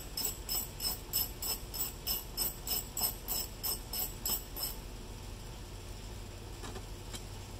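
Wrench ratchet clicking steadily, about four metallic clicks a second, as the mower's loosened blade nut is turned off. The clicking stops a little past halfway.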